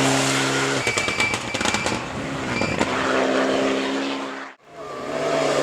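World Rally Car engine running at a steady note, with a quick run of sharp cracks and pops about a second in. The sound cuts out abruptly for a moment near the end, then the engine note returns.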